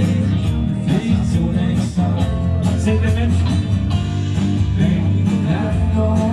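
Live band playing a song on an amplified stage, with guitar and a singer over a heavy bass.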